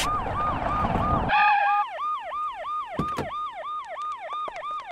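Police siren in a fast repeating yelp, its pitch sweeping down and back up about three times a second. A loud rushing whoosh opens it, and a short steady horn-like blast sounds about a second and a half in.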